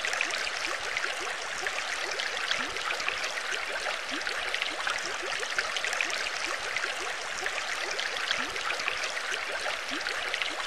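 Bubbling water: a steady stream of small bubbles, many quick rising blips over a constant watery hiss.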